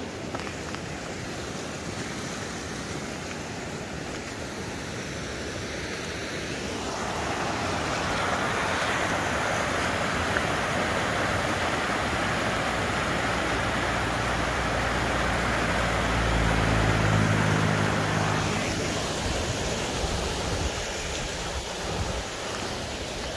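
Snowmelt creek rushing and cascading over rocks, a steady hiss of water that grows louder for about ten seconds in the middle and then eases off. A low hum joins briefly near the loudest point.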